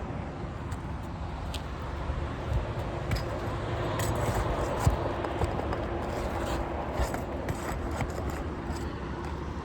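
Scattered scrapes and light metallic clicks of a roofer's pry tool working under 3-tab asphalt shingles to pull nails, over a steady low rumble.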